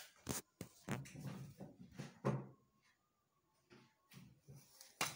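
Spatula knocking and scraping against a metal loaf tin as cake batter is spread level: a handful of short, sharp knocks with softer scrapes between them.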